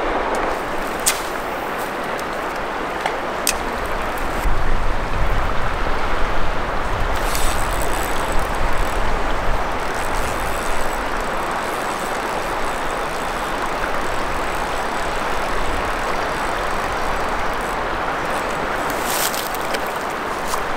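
Steady rushing of a mountain river, with wind rumbling on the microphone in gusts from about four to ten seconds in and a few sharp ticks. Near the end comes a brief splashing from a hooked trout thrashing at the surface on a spinner.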